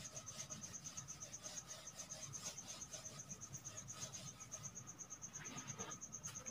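Faint rubbing strokes of a duster wiping a whiteboard clean, over a high, rapidly pulsing trill of a cricket, about ten pulses a second.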